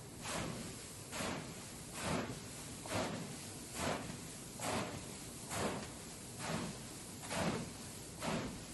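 Rhythmic scraping and rustling strokes, a little more than one a second: puffed brown rice being stirred into syrup with a paddle for oranda.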